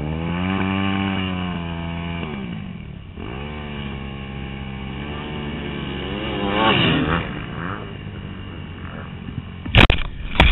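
Motocross bike engines revving as bikes ride past, the engine pitch rising and falling several times. Near the end, several loud knocks and rustling as the dropped camera is handled.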